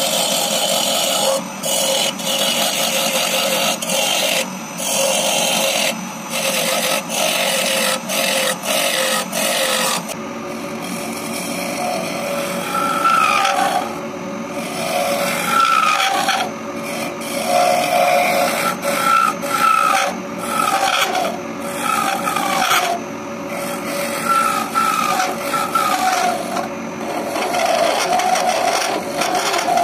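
Hand turning tool hollowing the inside of a wooden cup spinning on a wood lathe: a continuous cutting and scraping noise over a steady tone from the lathe, broken by short pauses as the tool is lifted. About a third of the way through, the cutting turns into a run of short, pitched scrapes about once a second.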